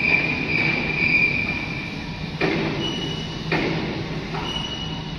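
Machinery noise in a large factory hall: a steady low hum with a high whine, broken twice by sudden metallic clanks about a second apart.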